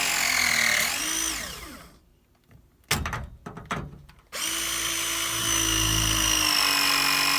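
Milwaukee M12 FORCE LOGIC 2473 press tool's motor whining steadily as it presses a Viega ProPress fitting onto copper pipe, its pitch falling away as the cycle ends about a second and a half in. After a short pause with a few sharp clicks, the motor starts again abruptly about four seconds in on the next press cycle.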